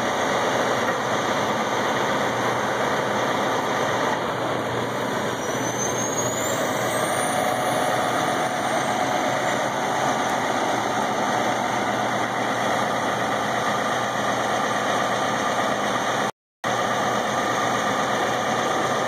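Heavy truck's diesel engine running steadily to drive the hydraulics of its Hiab knuckle-boom crane while the crane lifts a load. A faint high whistle rises and falls around the middle, and the sound cuts out for an instant near the end.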